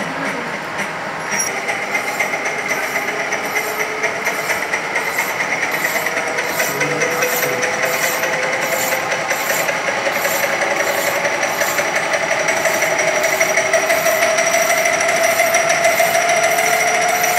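Centre lathe running with a steel workpiece turning in the chuck while a hand file is stroked against the spinning work, about one scraping stroke every 0.7 s. Under it the machine gives a steady whine that slowly rises in pitch.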